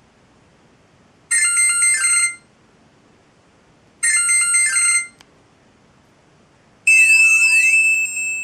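Samsung SGH-i560 mobile phone playing ringtones through its loudspeaker: two short, alike melodic chimes of about a second each, then a different tone with a held note and rising and falling sweeps near the end.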